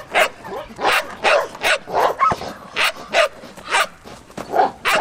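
Doberman barking repeatedly, about two barks a second, as a helper with a bite sleeve works it up in bite training.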